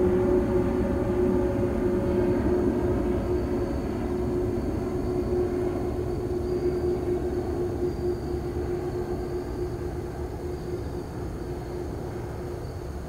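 Airbus A380-841's four Rolls-Royce Trent 900 turbofans at approach power just past overhead: a low rumble with a steady hum, fading gradually as the jet moves away.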